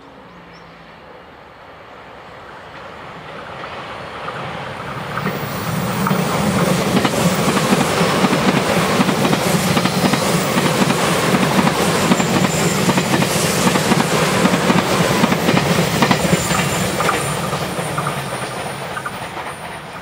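E351 Super Azusa electric limited express approaching and passing close by at speed, its wheels clattering over the rails. It grows louder over the first few seconds, runs loud for about ten seconds as the cars go past, and fades toward the end.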